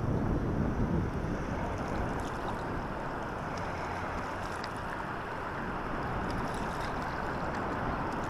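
Steady rushing noise of wind and moving water, even and unbroken, with no distinct events.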